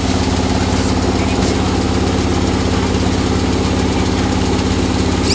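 Sawmill's engine running steadily at an even speed, with a constant pulsing hum.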